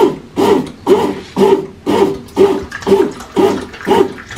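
Kent atta maker kneading flour and water into dough: the paddle churns the wet dough in the pan with a rhythmic pulse about twice a second.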